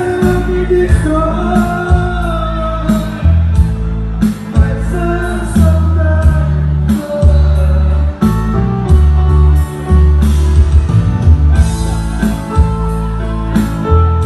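Live band music with a voice singing a melody over a heavy, pulsing bass line and a steady beat.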